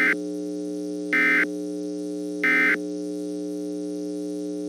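Three short bursts of Emergency Alert System digital data tones, the warbling End of Message code that closes an EAS alert, each about a third of a second long and evenly spaced about 1.3 s apart. Under them runs a steady low hum of several tones.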